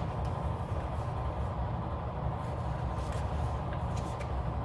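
Steady low hum of background noise, with a few faint light clicks.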